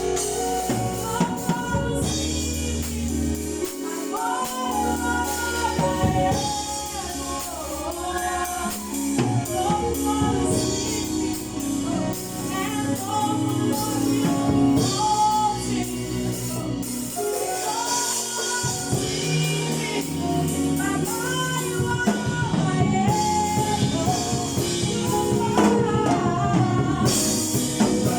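Church choir singing a gospel song with live band accompaniment: bass, drums and tambourine.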